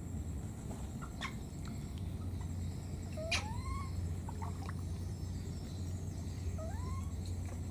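Baby monkey giving two short, rising squeaky cries, one about three seconds in and one near the end, over a steady low background rumble.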